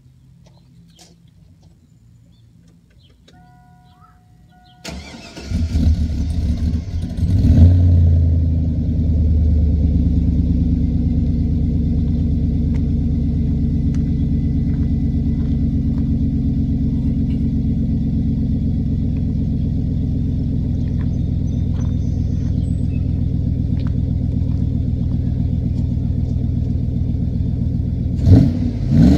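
After a few quiet seconds, a 2002 Chevrolet Silverado's 4.8-litre V8 cranks and starts from cold, flares up briefly, then settles into a steady idle. It runs through a Magnaflow stainless cat-back dual exhaust with the stock manifolds and catalytic converter still fitted. Near the end the engine is revved once briefly.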